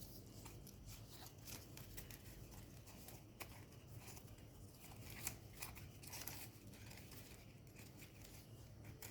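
Faint rustles and small crackles of folded paper as pleated Sonobe origami units are handled and slotted together, scattered irregularly over a low steady hum.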